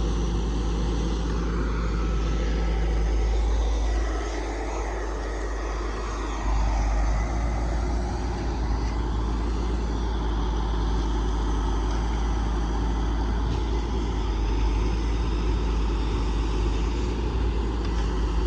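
Heavy truck engine running steadily with a deep low rumble; the sound drops a little for a couple of seconds about four seconds in, then picks back up.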